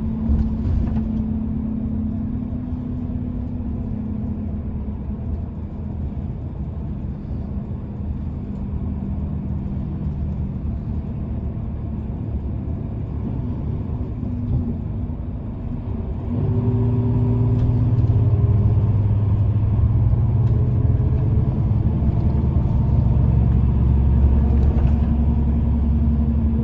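Low rumble and hum of motor vehicle engines, growing louder about two-thirds of the way through and staying up to the end.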